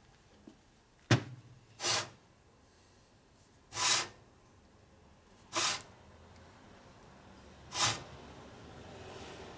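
A single sharp knock about a second in, then four short hissing spurts a second or two apart as the crankshaft parts of a shovelhead engine are lubricated.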